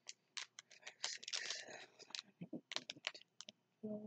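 Small plastic bags of diamond-painting drills rustling and clicking in a clear plastic compartment case as fingers sort through them: a run of sharp little clicks with a denser crinkle about a second in. A short murmur of voice near the end.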